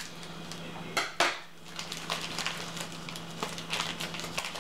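Scissors snipping through a thin plastic food bag, then the plastic crinkling as it is pulled open, with a sharp snip about a second in.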